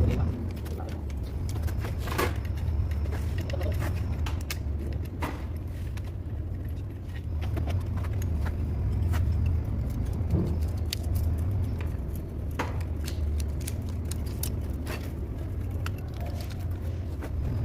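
An engine running steadily with a low hum, while metal tools and parts clink and tap irregularly over it.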